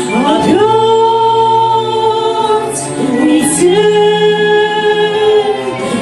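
Two women singing a duet with accompaniment, holding long notes in harmony that slide into pitch at their starts.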